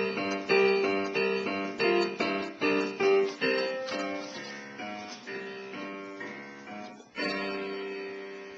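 Digital piano being played: a run of notes over a held low note, growing softer and sparser, then a final chord struck about seven seconds in and left to ring out.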